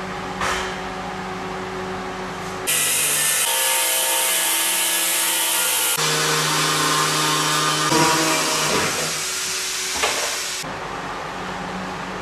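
Small handheld electric power tool grinding on a sintered stone slab: a loud hiss with a motor whine. It starts about two and a half seconds in and stops near the end, with a steady machine hum before and after.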